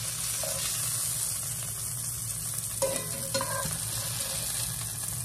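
Chicken breasts sizzling in melted butter in a cast iron skillet over high heat, a steady hiss. Two short knocks of metal tongs against the pan about three seconds in, as pieces are lifted out.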